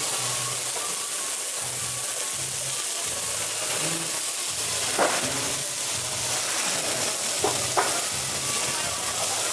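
Beef burger patties sizzling on a flat-top griddle, a steady hiss. A few sharp clicks stand out about five seconds in and twice more shortly after.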